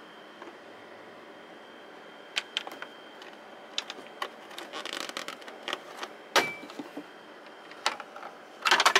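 Hands working the plastic lower dashboard trim cover of a Tesla Model S loose: scattered clicks and plastic rattles, a sharp snap about six and a half seconds in, and a quick run of clicks near the end.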